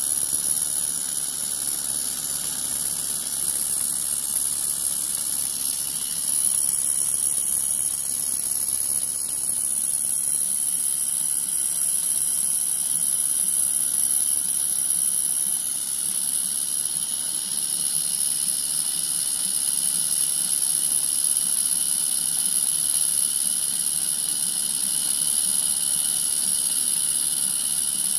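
Gas-fired live-steam boiler of a Regner tram power unit hissing steadily and high-pitched, from its burner and escaping steam.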